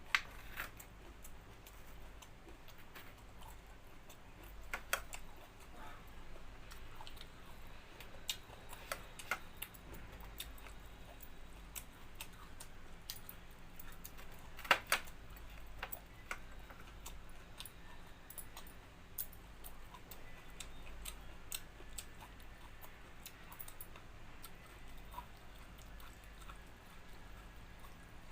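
Person eating a meal of rice and dal: quiet chewing with scattered small clicks, the loudest just after the start and about halfway through.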